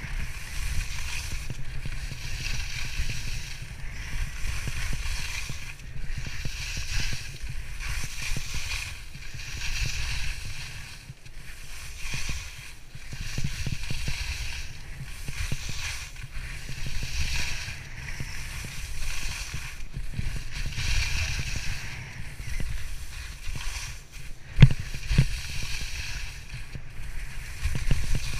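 Edges hissing and scraping across firm snow during a downhill run, swelling and fading with each turn, with wind rumbling on the microphone. One sharp knock near the end.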